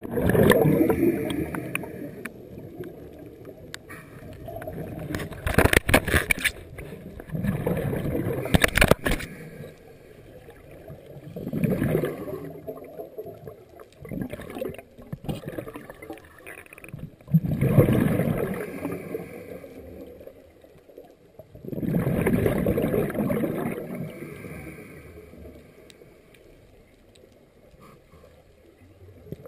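Scuba diver's regulator breathing underwater: exhaled bubbles gurgle in a swell every four to five seconds, with a few sharp clicks about a quarter of the way through.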